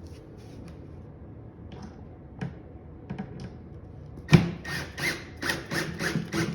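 A screw being driven through the cabinet side into the back panel: a few faint clicks, a sharp knock a little past halfway, then a quick run of rasping clicks, about three or four a second, to the end.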